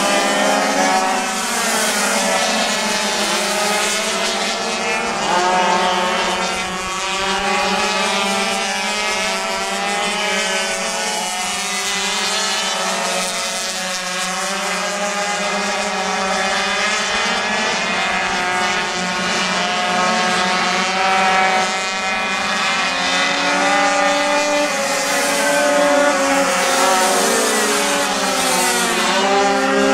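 A pack of racing pocket bikes, their small two-stroke engines buzzing at high revs with several engines overlapping, each rising and falling in pitch as the riders open and close the throttle through the corners.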